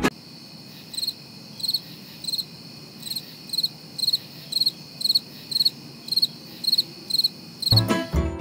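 Cricket chirping: a regular, high-pitched chirp about every two-thirds of a second over a faint steady hiss, starting and stopping abruptly, the stock 'crickets' effect for an awkward silence.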